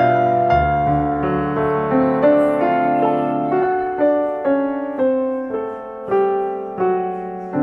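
Background piano music: a slow, gentle melody of single notes, about two a second, each left to ring and fade.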